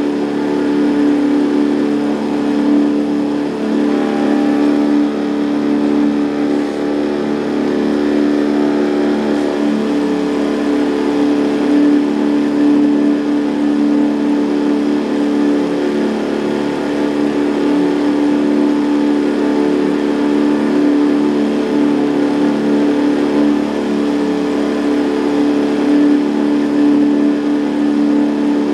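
Boat's outboard motor running at a steady speed, its pitch holding constant throughout.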